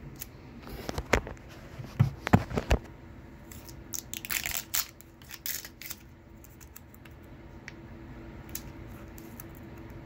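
A hand working the screw cap of a bottled coffee: sharp clicks and crackles in the first three seconds, a longer crackling rustle around four to five seconds in, then scattered faint ticks.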